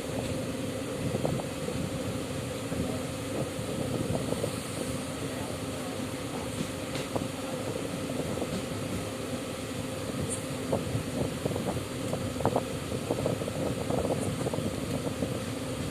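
Passenger train at a station platform: a steady low hum under a background of noise, with irregular light knocks and clicks that grow more frequent in the second half.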